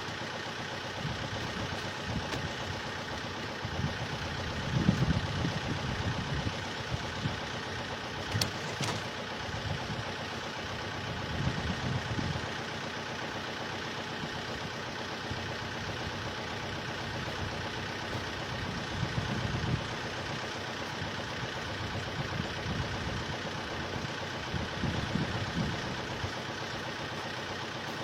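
An engine running steadily, with several brief low rumbles and a sharp click about eight and a half seconds in.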